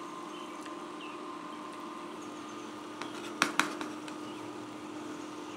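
A slotted spoon and a boiled pretzel set down on a metal baking sheet: a few sharp clicks a little past halfway, the loudest two in quick succession. A steady low electrical hum sounds underneath.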